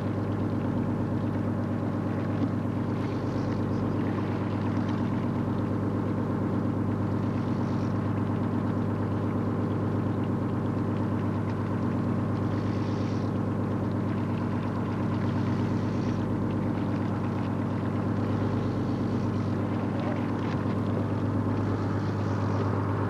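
Boat engine running steadily: a constant low drone made of several steady tones.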